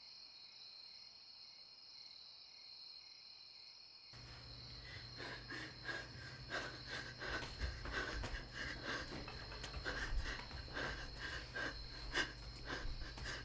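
Crickets chirping steadily. About four seconds in, a low hum joins, along with the irregular slaps of running footsteps on a road, roughly two to three a second.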